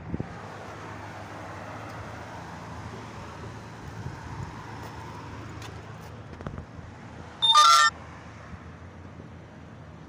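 Steady rushing outdoor background noise, with one brief, loud, shrill sound about seven and a half seconds in.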